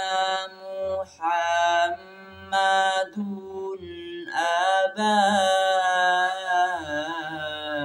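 A young man's voice reciting the Quran in the melodic tilawah style, drawing out long held notes with wavering ornaments. The notes are broken by two short breath pauses.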